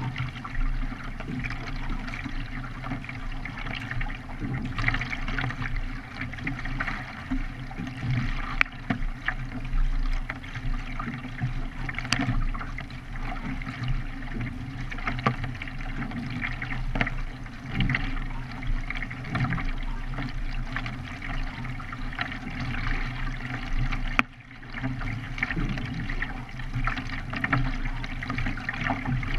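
Water splashing and rushing along a K1 racing kayak under paddle, with many irregular sharp splashes over a steady low rumble. The sound dips briefly about 24 seconds in.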